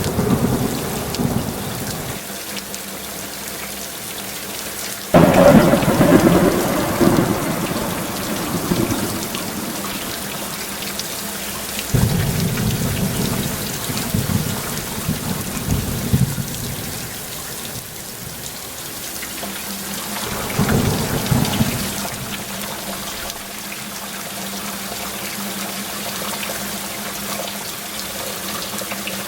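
Heavy rain falling steadily, with thunder. A loud peal breaks suddenly about five seconds in and rumbles away over several seconds, another follows about twelve seconds in, and a smaller one comes about twenty seconds in.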